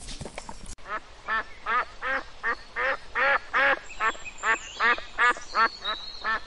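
Mallard hen quacking in a long, even series of about fourteen quacks, two to three a second, starting about a second in.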